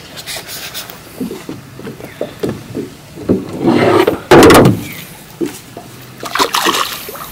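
Water splashing as a hooked smallmouth bass is scooped into a landing net about four seconds in, the loudest sound, with scattered knocks and rubbing against the small metal boat's hull before and after.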